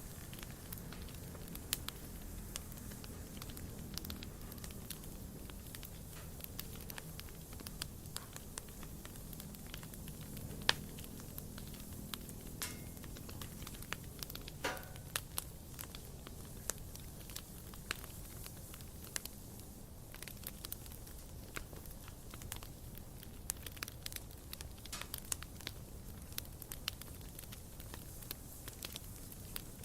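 Wood campfire burning: irregular sharp crackles and pops over a low, steady rumble of flame, with a couple of short hisses near the middle.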